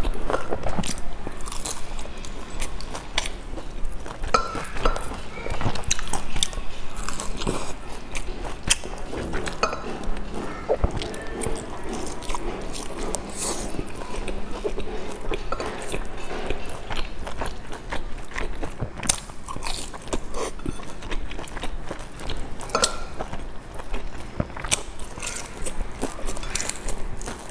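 A person biting and chewing pan-fried dumplings with crisp browned bottoms, close to a clip-on microphone, giving many irregular sharp crackles.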